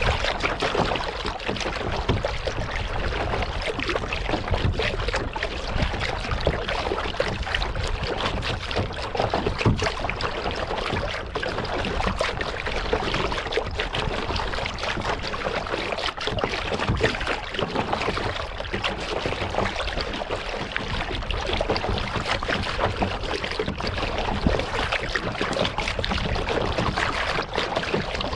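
Kayak being paddled on a lake: water splashing and trickling off the paddle and against the hull, with many small splashes and drips throughout.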